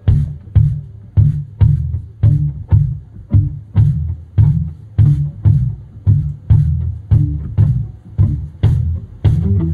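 Live band in a stripped-down breakdown: a kick drum and a low bass note strike together on every beat, a little under two a second, with a light cymbal tick on each hit.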